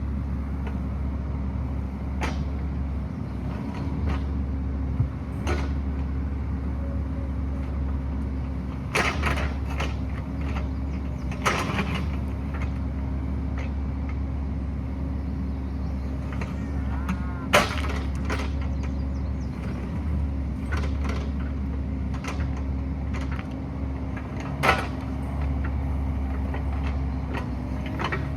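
Excavator's diesel engine running steadily, with sharp clanks and scrapes every few seconds as the bucket works against rock; the loudest clank comes about two-thirds of the way through.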